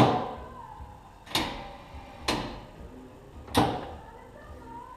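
Four sharp metal knocks, the first the loudest, each ringing out briefly, from handling a steel-rimmed wheel on an old wheel-balancing machine.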